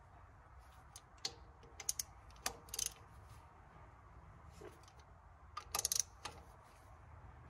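Hand tools clicking and clinking on an injector's hold-down bolts as they are snugged down: scattered light metallic clicks, with a quick cluster about three-quarters of the way through.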